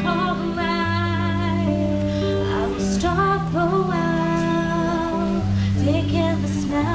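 Small live band playing a song, a woman singing lead over acoustic guitar, electric guitar, bass guitar and percussion, amplified through PA speakers. Brief cymbal-like splashes come about three seconds in and again near the end.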